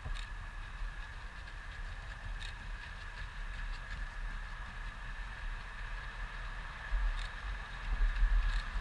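Footsteps of runners passing on a gravel path, over a steady low rumble and a faint steady high tone. The footfalls are loudest near the end, as a runner passes close by.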